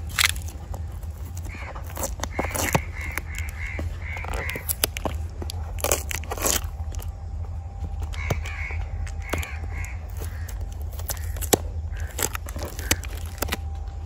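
Crows cawing in short runs of calls, mixed with crackles and taps from packing tape being picked and peeled off a cardboard box.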